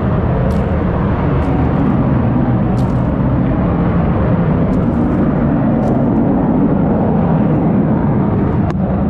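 Wind buffeting the microphone, a loud, steady rumble, with a few faint clicks scattered through it.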